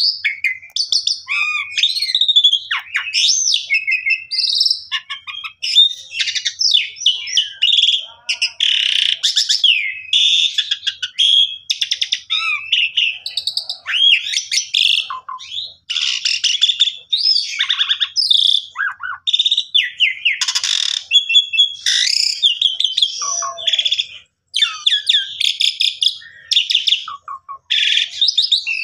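Asian pied starling (jalak suren) singing a long, continuous song, with whistled rising and falling glides mixed with fast, scratchy chattering phrases. The song is a full repertoire of fills (isian) delivered without a break.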